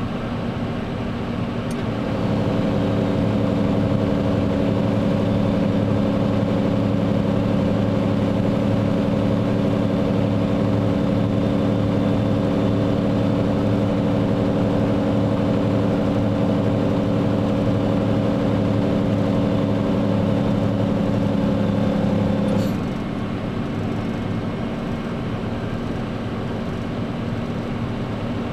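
Scania R114 380 truck's 11-litre straight-six diesel running, heard from inside the cab. About two seconds in, its note steps up to a louder, steady drone at a constant pitch, which holds for about twenty seconds and then drops back near the end.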